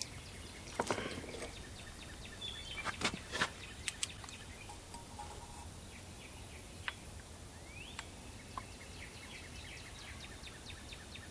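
Quiet background with a few light clicks and knocks of handling about a second in and again around three to four seconds in, and faint bird chirps, one a short rising chirp near eight seconds in.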